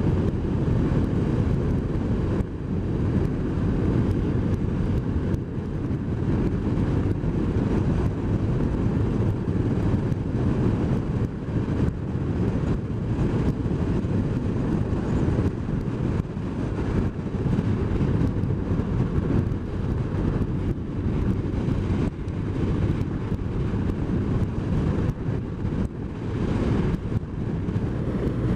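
BMW R1200 R's boxer-twin engine running at a steady cruise, mixed with wind rushing over the microphone.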